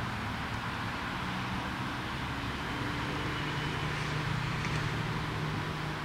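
Steady low engine hum with a slightly drifting pitch under an even background hiss.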